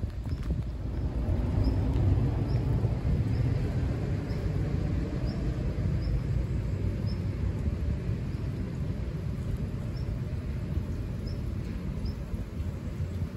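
Outdoor ambience of a wet, rainy street heard while walking: a steady low rumble with faint light ticks every second or so.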